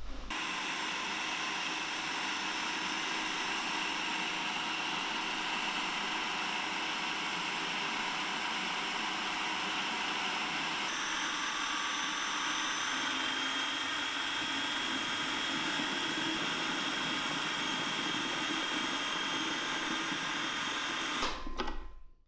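Electric food processor running steadily, blending flour and non-alcoholic beer into a batter. Its sound shifts about halfway through, and it switches off near the end.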